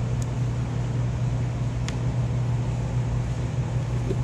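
A steady low mechanical hum, with two faint ticks in the first two seconds.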